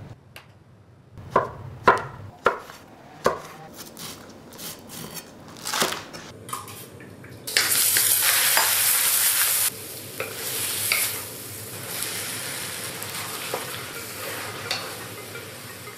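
Stir-frying in a wok: a few sharp clacks of utensils at first, then, about seven and a half seconds in, a loud burst of sizzling as minced garlic goes into hot oil. The sizzling then eases to a steady level, with the clicks and scrapes of a wooden spatula stirring against the wok.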